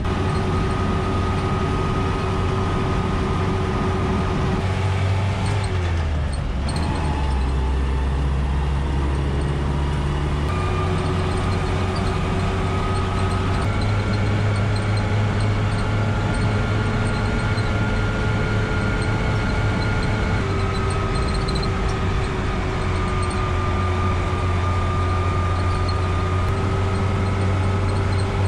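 1981 Land Rover Series 3 Lightweight heard from inside its cab while driving: a steady engine and drivetrain drone with held whining tones. The pitch dips briefly about six seconds in, then shifts to new steady levels several times as the revs change.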